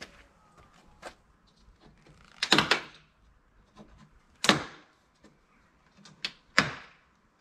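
Chrome window trim being pried off a car's door frame, its clips letting go with a few sharp snaps: a quick cluster about two and a half seconds in, another about two seconds later, and a last pair near the end.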